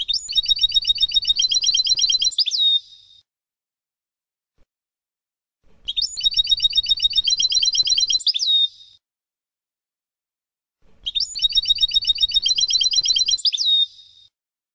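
European goldfinch song: a fast, high, rattling trill phrase lasting about three seconds and ending in a sharp down-slurred note, played three times about five seconds apart. It is a recorded tutor song used to teach young goldfinches their song.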